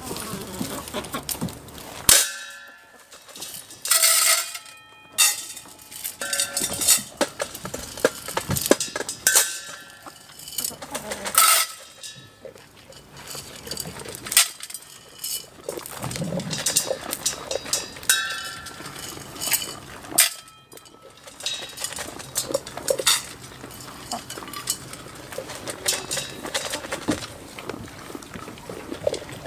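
Farmyard chickens clucking in short calls, mixed with frequent metallic clinks and knocks.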